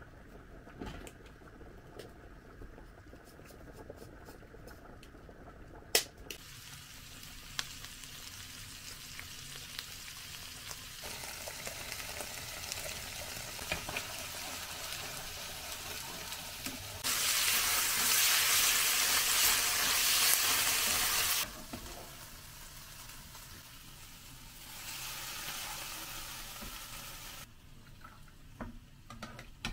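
A few light clicks of metal tongs in a pot of pasta water, then sausage, onion and green pepper sizzling in a frying pan as a spatula stirs them. The sizzle gets louder for a few seconds past the middle, then drops back.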